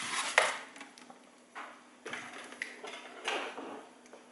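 Handling noise as a pair of strapped FPV goggles is pulled off a foam display head: a sharp plastic click about half a second in, then a few soft scraping rustles.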